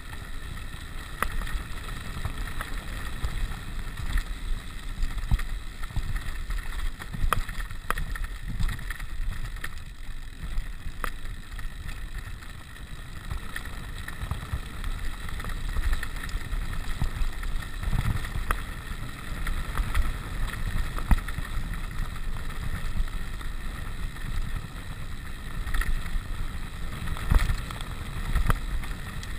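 Rigid 29er mountain bike ridden over a loose gravel road: wind buffeting the microphone over a rumble of tyres on stones, with frequent small knocks and rattles from the bike.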